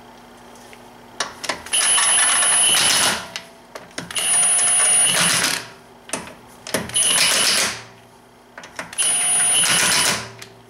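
Impact gun on its slow setting, run four times in short bursts of about a second each: the motor whines and the hammer rattles as wheel lug bolts are spun in.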